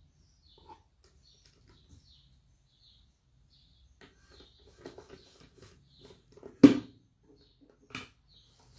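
Decoupaged craft box being handled and shifted on a table: a run of small knocks and scrapes, then one sharp, loud knock about two-thirds of the way through and a smaller one near the end.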